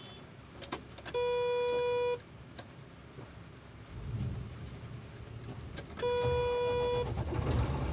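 Two steady one-second electronic beeps, about five seconds apart, from a warning beeper on the heavy machinery. A low engine rumble comes in between them, about four seconds in.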